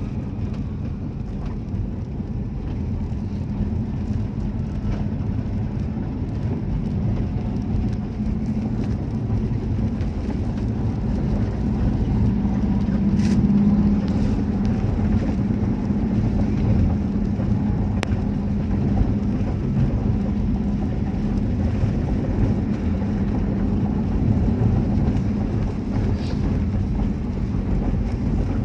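Engine and road noise of a moving vehicle heard from inside the cabin: a steady low drone that grows a little louder about halfway through, with a couple of faint clicks.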